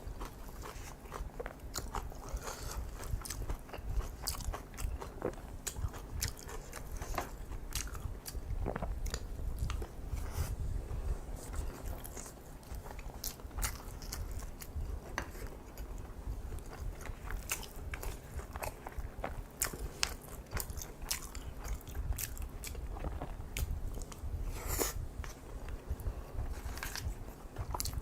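Close-miked eating sounds: chewing kimchi fried rice and crunchy kimchi, with wet clicks and crunches at an irregular pace over a low steady hum.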